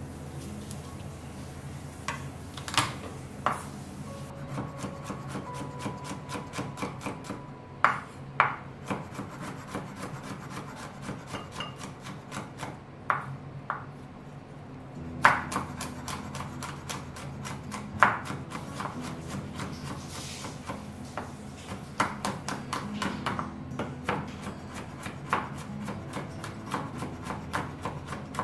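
Chef's knife chopping garlic cloves on a wooden cutting board: a quick run of blade taps on the wood, several a second, with a few louder single strikes.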